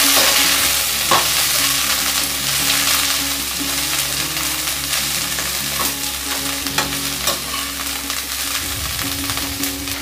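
Shredded cabbage sizzling in hot oil in a kadai as it is stirred and tossed with a metal spatula, with a few sharp clicks of the spatula against the pan. The sizzle is loudest at the start, just after the cabbage goes into the oil.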